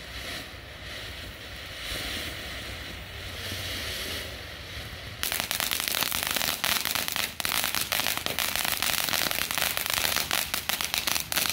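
Ground fountain fireworks spraying sparks with a steady hiss; about five seconds in, a loud, dense crackling begins and stops near the end.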